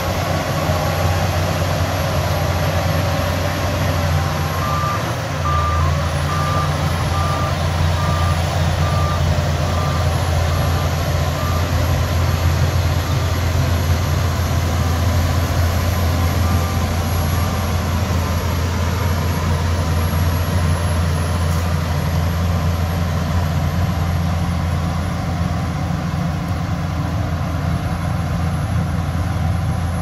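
Shantui crawler bulldozer's diesel engine running steadily under load, with a backup alarm beeping a little over once a second from about five seconds in, fading out after about eighteen seconds.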